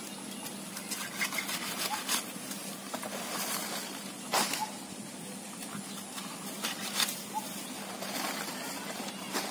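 Taro stalks being broken off by hand, a handful of short sharp cracks spaced a second or two apart, the loudest about four seconds in, over rustling leaves and a steady hiss.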